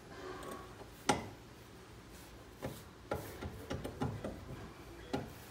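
Hand tools clicking and knocking on metal front-suspension parts while bolts are refitted by hand: one sharp knock about a second in, a cluster of irregular clicks a little later, and one more near the end.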